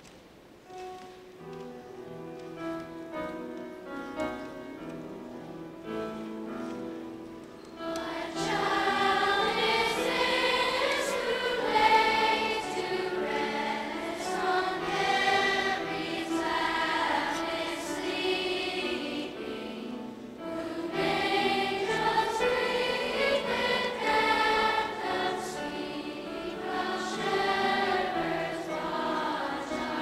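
Children's school choir singing. The music begins softly, and the full choir comes in loudly about eight seconds in, with a brief drop around the twenty-second mark before the singing swells again.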